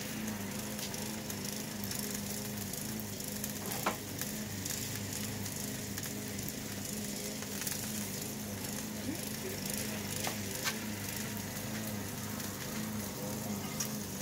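Burger patties sizzling on a homemade flat steel griddle over a gas grill as their fat renders out, with a few sharp pops of spitting fat and a low steady hum underneath.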